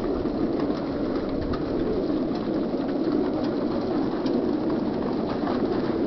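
Many young racing pigeons crated together, cooing in a steady, overlapping chorus.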